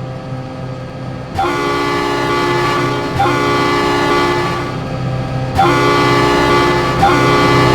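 Train horn sounding four long blasts in two pairs of chords, with a short break between the pairs, over a steady low rumble.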